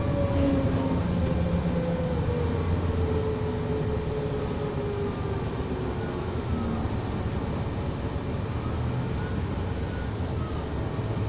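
Volvo ALX400 double-decker bus's diesel engine and drivetrain running on the move, with a whine that falls steadily in pitch over the first six seconds as the bus slows, then steady running.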